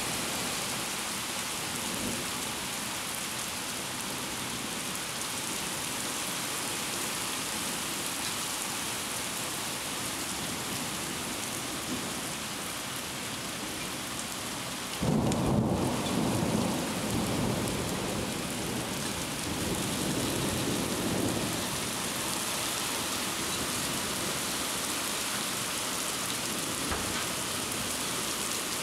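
Heavy rain pouring with a steady hiss. About halfway through, a rumble of thunder breaks in suddenly and rolls on for several seconds, swelling again a few seconds later.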